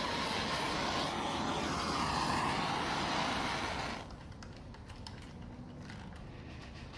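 Handheld heat gun blowing a steady rush of hot air, switched off suddenly about four seconds in and followed by faint clicks of handling. It is heating the adhesive keel-guard tape to make it stick.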